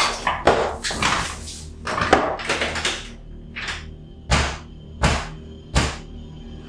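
Horror sound design: a run of sharp noisy sounds. In the second half come three heavy thuds about two-thirds of a second apart, over a faint sustained music drone.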